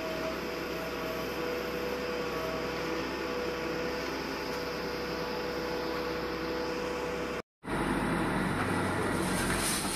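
Truck engine running to drive its mounted loader crane: a steady mechanical hum with a faint thin whine over it. The sound breaks off for a moment about seven and a half seconds in and comes back a little louder, with more low rumble.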